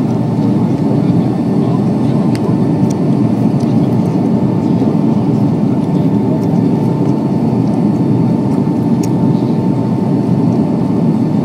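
Steady cabin noise inside a Boeing 757 airliner in flight: an even rush of engine and airflow noise, with a faint steady high whine.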